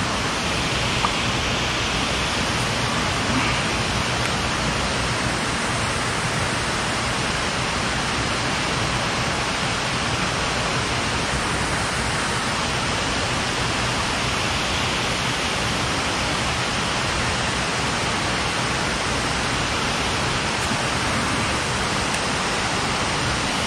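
Steady rush of water at a dam, an even hiss that holds at one level throughout.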